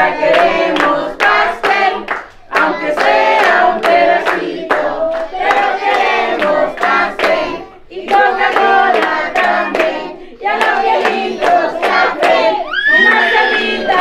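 A group of voices singing together in phrases, with steady rhythmic hand-clapping along.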